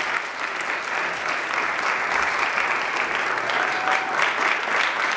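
Audience applauding with steady, dense clapping.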